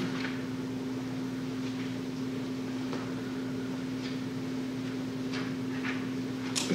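Steady low hum of room background noise, like ventilation or electrical hum, with a few faint clicks and rustles scattered through it.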